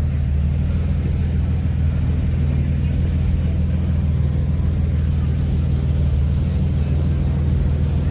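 A city bus's engine idling close by: a steady, unchanging low hum.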